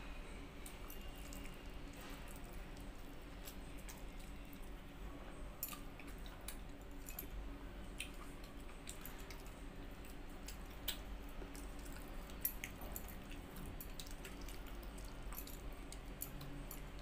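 Faint eating sounds: a hand squishing and mixing pakhala, rice soaked in water, in a steel bowl, with chewing and scattered small clicks.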